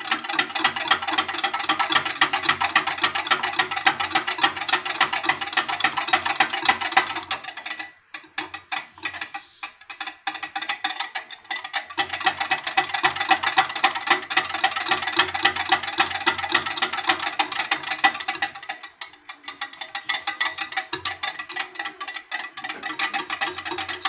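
Wire hand whisk beating a milk and yogurt mixture in a glass bowl: a fast, steady clatter of the tines against the glass, stopping for a few seconds about a third of the way in and briefly again later.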